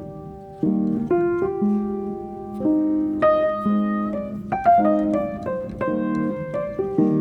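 Background piano music: a run of chords and melody notes that change every half second or so.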